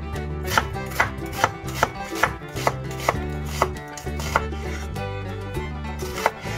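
Chef's knife slicing an onion on a wooden cutting board: about ten sharp knocks of the blade on the board, roughly two a second, then a pause and a last knock near the end.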